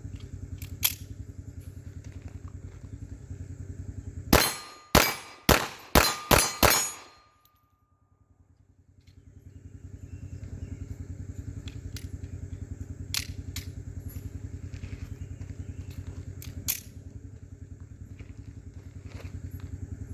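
Six pistol shots from a Taurus Spectrum .380 ACP micro pistol, fired in quick succession over about two and a half seconds, emptying its six-round magazine; a short ringing tone follows the string. A steady low hum runs underneath, with a few single faint clicks or cracks elsewhere.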